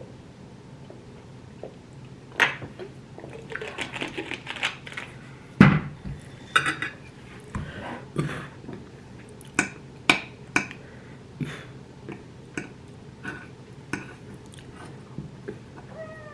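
Cutlery clinking and scraping on a plate during a meal, with chewing: a scatter of sharp clicks and one heavier knock about five and a half seconds in.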